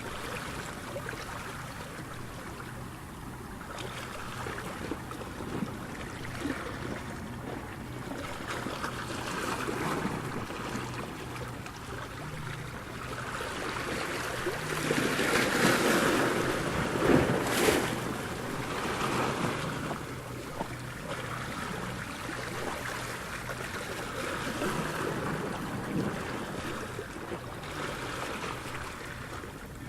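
Ocean surf: waves washing in and rushing up the shore, swelling to its loudest about halfway through as a wave breaks, then easing back.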